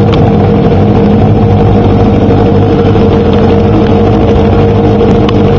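Engine held at high, steady revs during a burnout, the rear tyre spinning in place on the stand. The sound is loud and constant, with no let-up or gear change.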